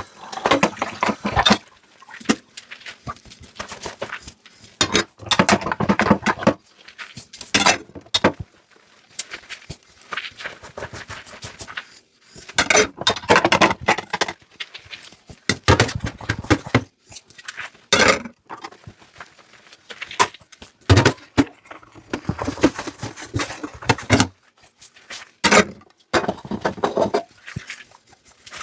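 Dishes and cutlery clinking and clattering as they are handled, in irregular clusters of knocks separated by short pauses.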